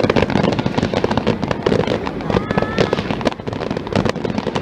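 Fireworks going off in a dense, continuous barrage of rapid cracks and pops.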